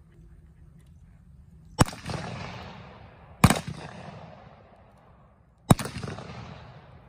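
Three revolver shots fired with blank cartridges, the second about a second and a half after the first and the third about two seconds later, each trailing off in an echo over about a second.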